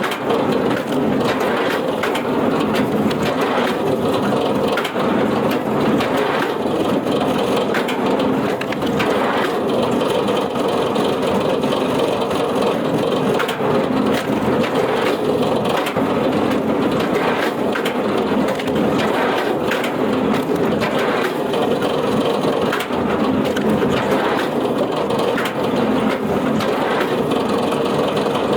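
A heavy wood-processing machine running continuously while it crushes and splinters wood, a loud steady grinding noise.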